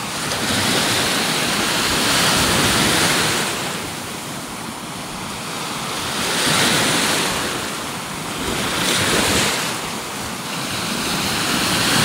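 Lake waves washing onto a sandy beach, the surf noise swelling and fading every few seconds.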